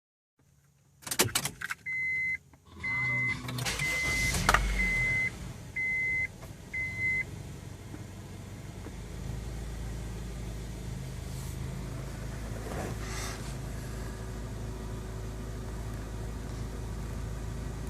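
Clicks, then a dashboard chime beeping about six times while a 1999 Honda CR-V's 2.0-litre four-cylinder cranks and starts. On this first start after a battery disconnect, the idle dips very low and then comes back up, settling into a steady idle.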